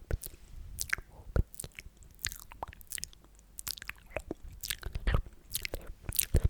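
Close-miked ASMR sticky mouth sounds: wet lip smacks, tongue clicks and pops coming irregularly, several a second, with a sparser stretch midway.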